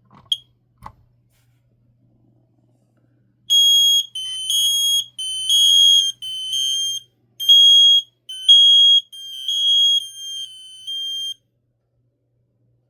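First Alert SMI100-AC smoke alarm sounding its test alarm. A short chirp and a click come in the first second, then a run of about a dozen loud, high-pitched beeps, each about half a second long, some louder than others, starts about three and a half seconds in and stops abruptly about eleven seconds in.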